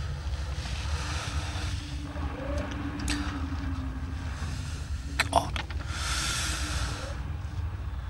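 Steady low rumble with a faint hum over it, and a few short sharp clicks or knocks about three seconds and five seconds in.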